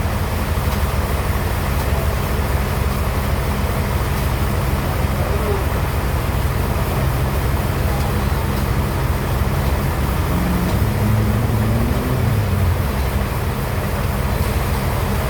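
Sawmill bandsaw machinery running steadily with a low, even hum. A brief rising tone sounds about ten seconds in.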